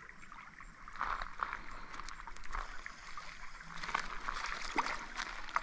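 Small creek running over stones, a steady even rush, with a few small clicks scattered through.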